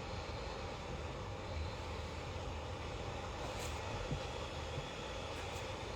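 Steady low background rumble with a faint hiss, no distinct events.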